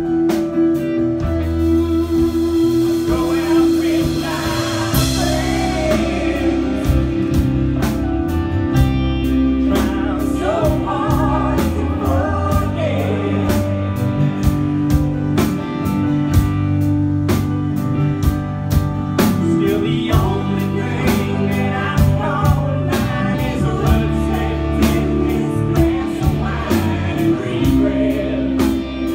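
Live band playing a downbeat song: acoustic and electric guitars, bass guitar and drum kit, with voices singing over them.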